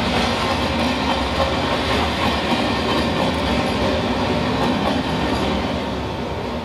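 Recorded train sound effect played in the theatre: a train running on the rails, steady, growing fainter near the end.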